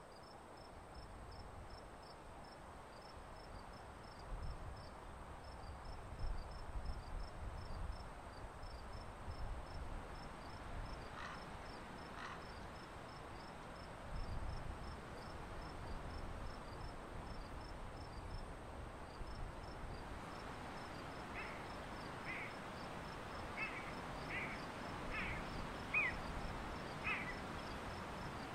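Woodland ambience: an insect, cricket-like, chirps steadily at a quick even rate, with a low rumble underneath. Two short high calls come about halfway through, and from about two-thirds in a run of short high calls repeats about once a second.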